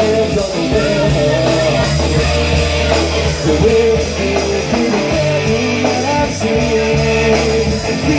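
Live rock band playing: a Telecaster-style electric guitar and a bass guitar over drums, with a steady cymbal beat.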